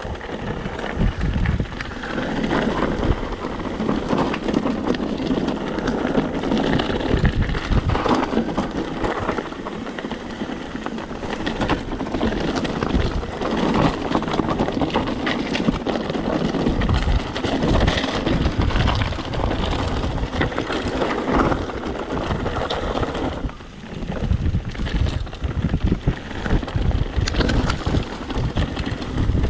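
Mountain bike descending a rocky trail: tyres and frame rattling over stones, with constant wind buffeting the camera's microphone and a brief lull about 24 seconds in.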